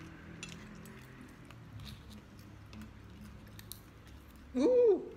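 Faint clicks and cracks of cooked lobster shell being pulled apart by hand, with chewing. Near the end comes a short, louder hummed 'mm' from a person, its pitch rising then falling.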